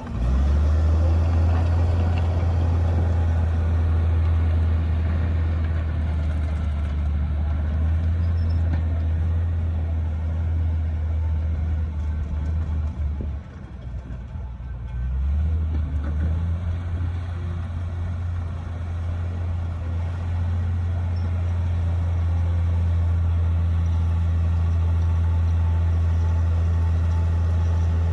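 Komatsu D58P bulldozer's diesel engine running as it works, a steady low drone. The sound falls away for about two seconds midway, then comes back as strong as before.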